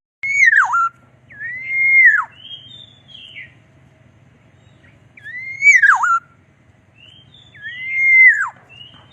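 Black-naped oriole singing: four loud, fluty whistles in two pairs, each note rising, holding and then swooping sharply down, with softer, higher notes between the pairs.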